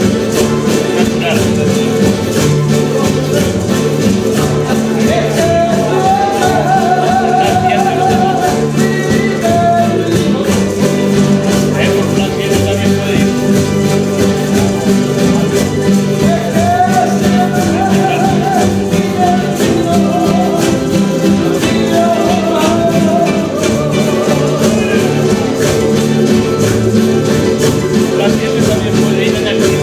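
Live folk music from a small group: guitars strummed in a steady rhythm with a metal scraper keeping time, and a voice singing phrases over them now and then.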